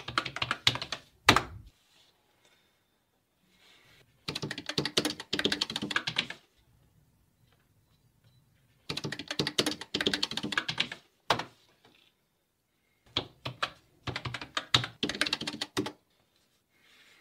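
Fast typing on a wooden computer keyboard, in about five bursts of rapid keystrokes of one to two seconds each, with short silent pauses between them. There is one hard, loud keystroke about a second in.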